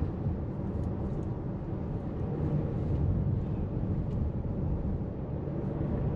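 Steady low rumble of a car driving along a city street, engine and tyre noise together, swelling slightly about halfway through.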